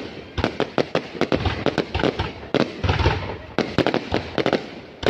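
Fireworks going off: a dense run of sharp bangs and crackles, several a second, with heavier booms about three seconds in.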